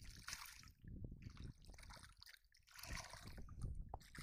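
Shallow muddy water sloshing and splashing faintly around a wading child's feet and hands as he grabs at a large fish. It comes in two spells of irregular splashing, with a lull around the middle.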